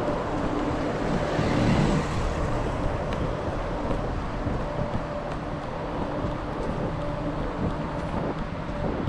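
Steady road traffic noise mixed with wind on the microphone, swelling briefly about two seconds in.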